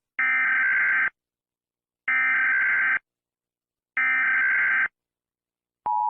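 Emergency Alert System SAME header: three buzzy digital data bursts, each just under a second long, about a second apart. Near the end the steady two-tone EAS attention signal begins.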